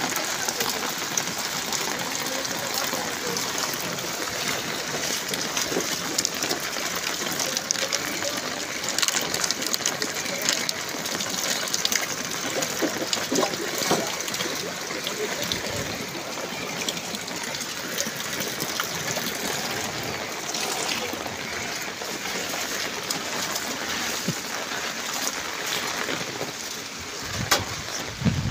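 Heavy monsoon rain falling steadily onto a flooded street, with many sharp close raindrop hits.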